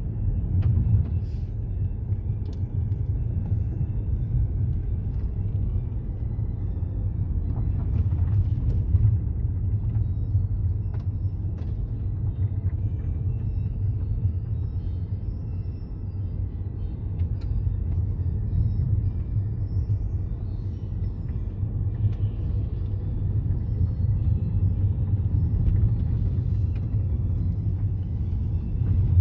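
A car driving on a mountain road: steady low engine and tyre rumble heard from inside the cabin, with a few faint clicks.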